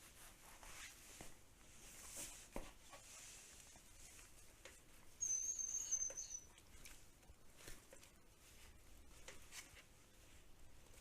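A dog makes one long, very high-pitched squeaking whine, slightly falling in pitch, about five seconds in, with faint small clicks around it.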